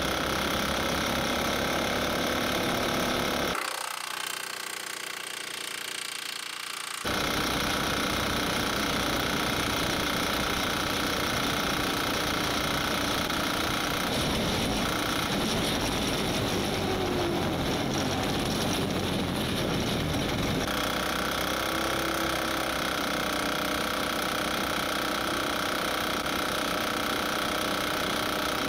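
Gasoline engine running on jet fuel instead of gasoline, a steady mechanical running sound. It drops to a quieter stretch about four seconds in and comes back at full level abruptly about seven seconds in.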